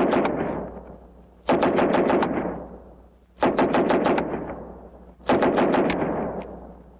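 Submachine guns firing short full-automatic bursts of rapid shots, each burst about a second long and trailing off in an echo. The end of one burst rings out at the start, then three more bursts follow about two seconds apart.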